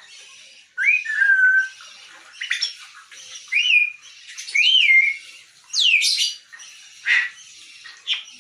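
Grey parrot calling: a string of about seven whistles and squawks, roughly one a second, several gliding up or down in pitch.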